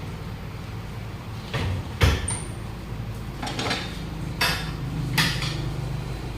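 Sharp metal clanks and knocks, about five irregular strikes, of hand tools on a steel wheel rim as a 7.00 R15 tyre is worked by hand, over a steady low hum.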